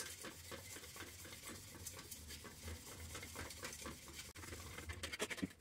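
Salvaged copper sheet being scrubbed by hand with quick back-and-forth strokes, a faint steady scratching, cleaning the tarnish off to bare copper ahead of brazing or TIG welding.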